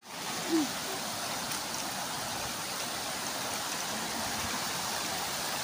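Shallow river rushing over rocks in rapids, a steady, even rush of water. A short falling tone about half a second in.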